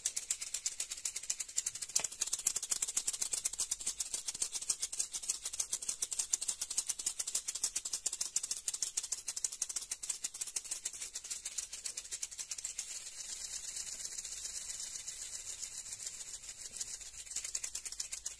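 Maracas shaken in a fast, steady rhythm, a dense rattle of beads inside the shells. For a few seconds past the middle the shaking evens out into a smoother, softer swish before picking up again.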